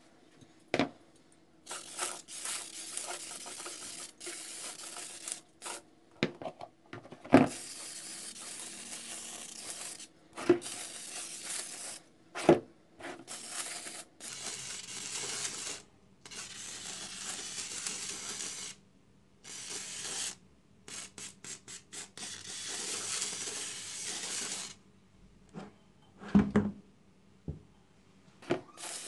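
Aerosol can of carburetor foam cleaner spraying onto a plastic coolant tank in repeated hissing bursts of one to four seconds, with a quick run of short squirts about two-thirds of the way through. A few sharp knocks of the plastic tank against the basin come in between.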